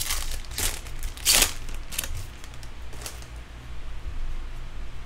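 Foil trading-card pack wrapper crinkling and tearing as it is pulled open: a handful of short rips in the first three seconds, the loudest about a second and a half in, then quieter handling of the cards. A steady low hum runs underneath.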